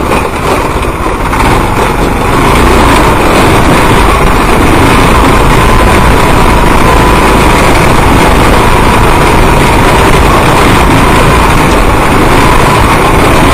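Small go-kart engine running steadily while driving over rough grass, very loud and close, with a thin steady whine. The sound swells about two seconds in and then holds at a constant level.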